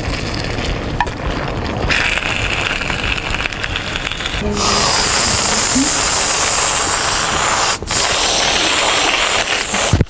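Aerosol whipped-cream can spraying into a mouth: a loud, steady hiss that starts about halfway through, cuts out briefly once near the end, then hisses again.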